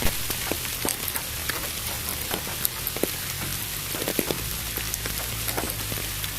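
Steady rain with scattered drops ticking sharply, over an even hiss of pink noise, with a low steady hum beneath.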